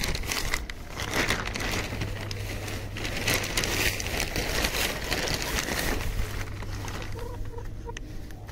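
Plastic tarpaulin and jute sacking rustling and crinkling as they are pulled aside by hand, for about six and a half seconds. Then it goes quieter, with a few soft chicken clucks near the end.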